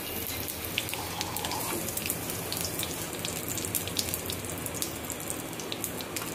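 A tadka of whole spices (cumin, mustard seeds, bay leaf, green chilli and crushed ginger) sizzling in hot mustard oil in an aluminium kadhai: a steady hiss with frequent small pops and crackles.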